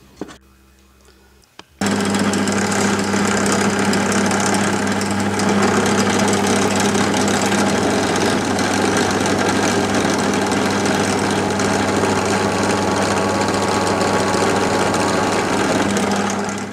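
A workshop machine's electric motor starts suddenly about two seconds in and runs at a steady speed, loud, with a low hum.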